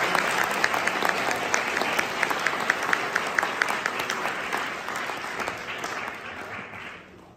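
Audience applauding, with one pair of hands clapping close by, about three claps a second. The applause dies away near the end.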